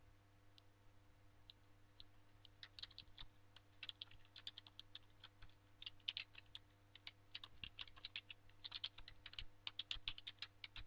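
Typing on a computer keyboard: quick runs of keystrokes that begin about two seconds in and grow denser toward the end, over a faint steady electrical hum.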